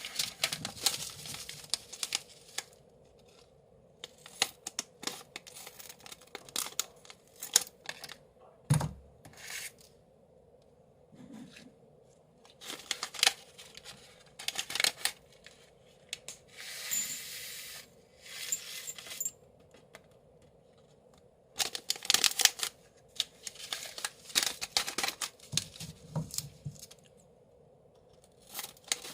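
Plastic snack packaging being handled and torn: crinkling, tearing and small clicks in bursts of a few seconds with short pauses between them.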